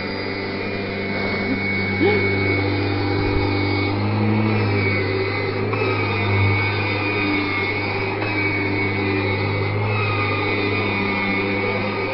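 Vacuum cleaner motor running steadily, a constant hum with a higher whine over it that shifts slightly in pitch now and then.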